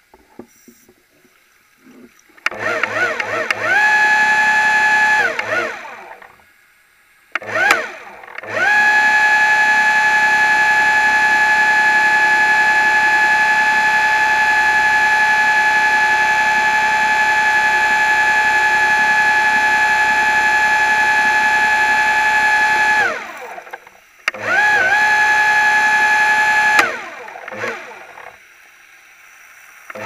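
Small electric motor running underwater: a high whine that rises in pitch as it spins up and falls as it winds down. It runs in short bursts a few seconds in and near the end, with a long steady run through the middle.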